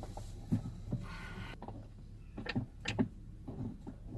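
Light knocks and clicks of grab-handle mounting hardware (bolts, spacers and standoff pieces) being handled and fitted, four or five separate taps with a short rustle between them.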